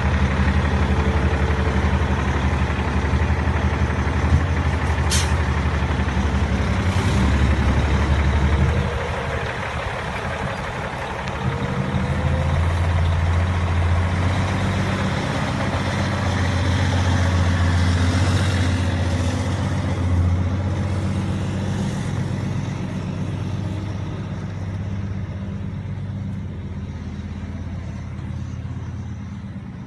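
International LoneStar semi truck's diesel engine running with a loud, low drone for about eight seconds, dropping off, then building again from about twelve seconds and fading gradually toward the end.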